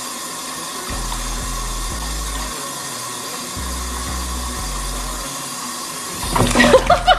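Bathtub faucet running a steady stream into a full tub of water. About six seconds in comes a sudden loud splash with sharp knocks as a kitten falls into the bath.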